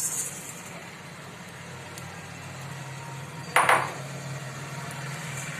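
Dried sukat poured into a dry iron kadhai, a brief rustling patter at the very start as the flakes land. A steady low hum runs underneath, and a single sharp metallic clank comes about three and a half seconds in.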